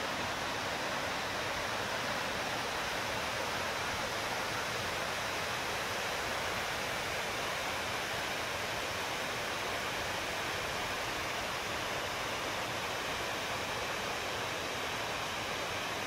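Yudaki Falls, a wide cascade of water sliding and tumbling down a steep rock face, giving a steady, even rushing sound that does not change.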